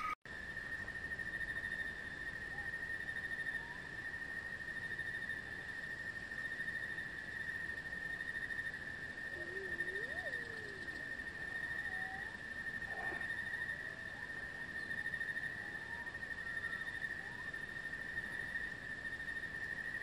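Nature ambience: insects trilling in one steady high pitch, with a few faint wavering bird-like calls, the clearest about halfway through. The track cuts out for an instant right at the start.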